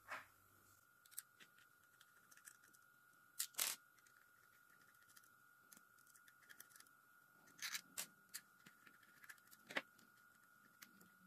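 Scattered small clicks and taps of hair-clipper parts being handled and taken apart, loudest as a quick pair about three and a half seconds in and again near eight and ten seconds. A faint steady whine sits underneath.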